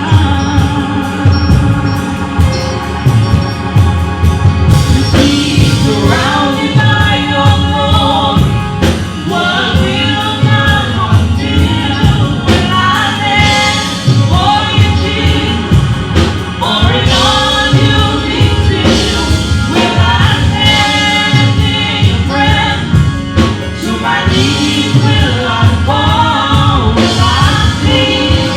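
Gospel music: a choir and lead singers singing over a live band with a steady beat.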